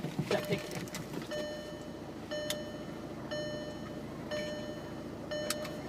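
A car's warning chime dinging evenly about once a second, each ding about half a second long, over a low steady hum.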